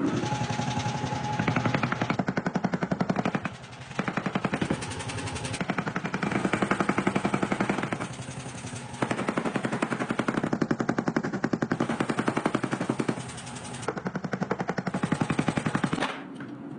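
Power hammer striking steel in rapid runs of blows, a few seconds each, with short pauses between, as the Damascus billet is forged.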